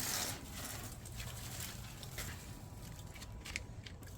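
Netting rustling as a trapped common grackle struggles in it: a burst of rustling at the start, then scattered light rustles and ticks.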